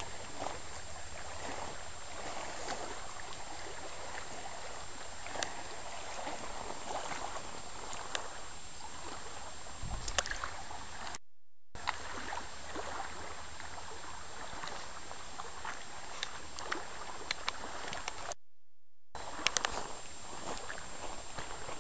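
Small lake waves lapping on a pebble shore: a steady wash with scattered light clicks, broken twice by brief gaps of silence.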